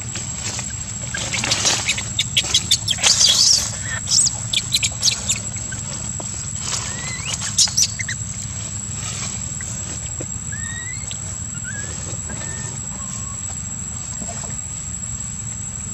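Infant long-tailed macaque crying for milk in a run of sharp, high squeals for a few seconds, then a few faint short chirps, over a steady low background hum.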